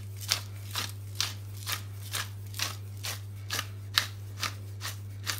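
Hand pepper mill grinding, with even crunchy strokes about twice a second over a steady low hum.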